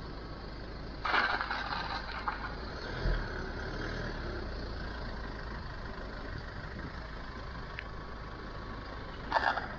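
Car moving slowly on a wet road, heard from a camera mounted on its side: a steady low rumble with a hissing swish about a second in and another near the end.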